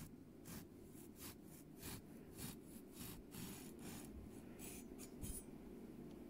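Serrated bread knife sawing through a baked mandarin semolina cake: faint, scratchy rasps of the blade on the crust and crumb, about three strokes a second, stopping a little before the end.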